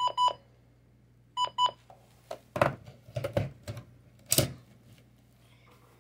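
Midland WR-100 weather radio's keypad beeping as its buttons are pressed: two pairs of short high beeps about a second and a half apart. After them comes a run of knocks and clatter from the radio being handled, the loudest about four seconds in.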